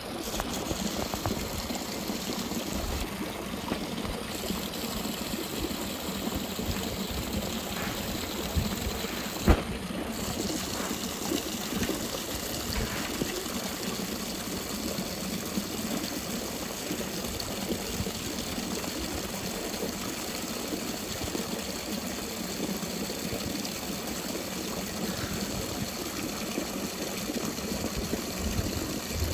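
Water running steadily while a horse drinks from a trough. A single sharp click sounds about nine and a half seconds in.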